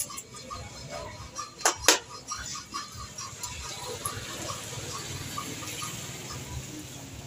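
Hand peeler scraping the skin off a potato, with two sharp knocks close together about two seconds in. A faint regular ticking, about four a second, runs underneath.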